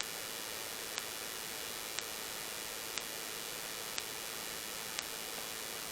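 Steady even hiss like static, with a short sharp tick exactly once a second.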